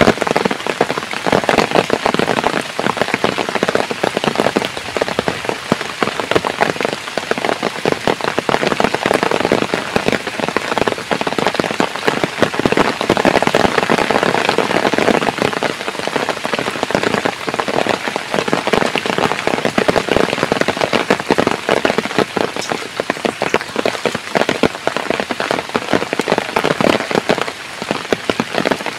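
Heavy rain falling steadily, a dense patter of drops striking surfaces.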